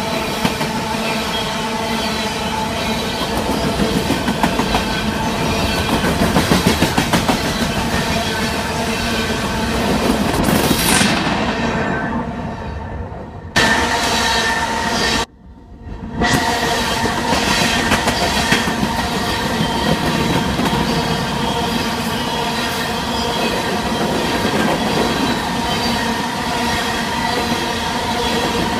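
Freight train of covered hopper cars rolling past close by: a steady rumble and clickety-clack of steel wheels over the rail joints. The sound briefly drops out twice near the middle.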